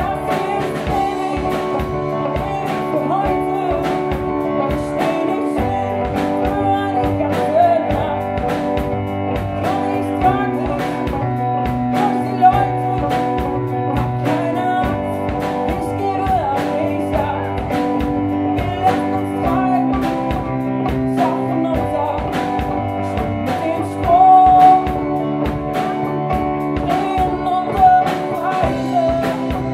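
Live band music: a woman singing over electric guitar, keyboard and drums keeping a steady beat.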